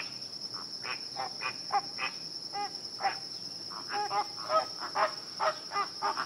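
A flock of flamingos honking in short calls, a few at a time at first and more crowded from about four seconds in, over a steady high-pitched hum.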